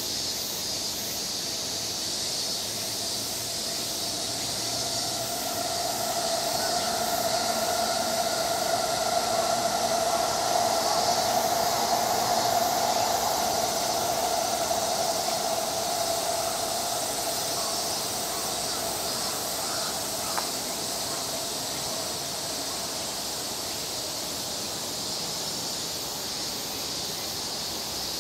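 Outdoor garden ambience: a steady high buzzing hiss throughout, with a squealing tone that swells up about a quarter of the way in, holds for about ten seconds and slowly fades. One small click comes past the middle.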